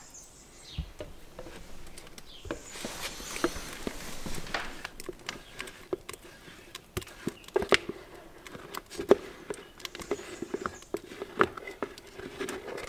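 Wet banana-and-egg mixture poured from a jug into a mixing bowl, with a utensil scraping and tapping irregularly against the jug and bowl to get it all out.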